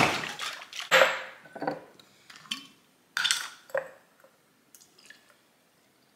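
A drinking glass and a glass juice bottle being handled on a kitchen countertop: a string of clinks and knocks over the first four seconds, the loudest at the very start and about a second in, then only faint sounds as the juice begins to pour.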